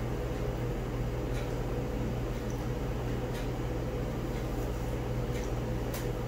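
Steady low hum of room background noise, with a few faint clicks scattered through it.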